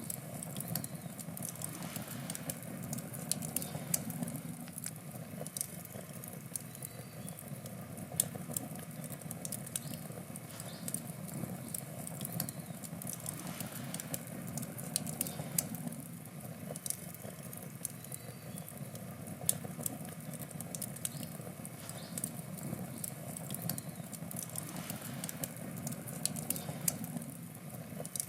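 Wood campfire burning: a steady low rush of flame with frequent small crackles and occasional sharper pops from the burning wood.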